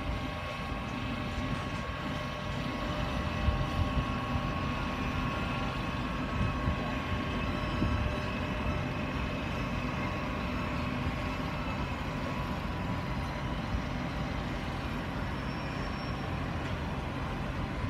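TGV Lyria high-speed train pulling slowly away through the station: a steady low rumble with a steady whine over it, and a few louder knocks in the first half.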